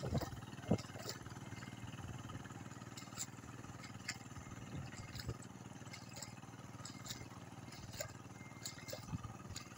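Engine of a two-wheel walking tractor running steadily as it works a flooded paddy, heard as a faint low chugging hum with occasional sharp clicks.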